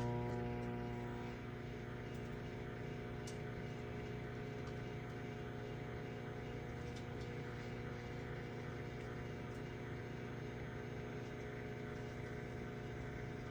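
Microwave oven running with a steady electrical hum, a little louder for about the first second before settling.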